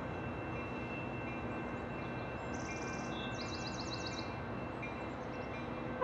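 Grade-crossing warning bells ringing steadily over a low rumble of rail and road noise, with a short bird twitter in the middle.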